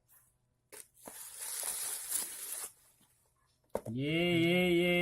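Parcel packaging ripped open, a noisy tearing lasting nearly two seconds. Then, near the end, a voice holds one long drawn-out note.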